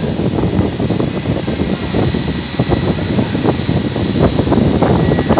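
CNC machining centre running inside its enclosure with coolant spraying on the workpiece and window: a loud, dense rushing noise full of fine irregular crackle, over several steady high whining tones.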